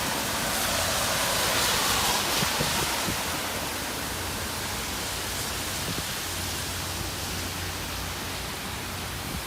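Typhoon wind and rain as a steady noise, swelling in a gust from about a second in to about three seconds, then settling.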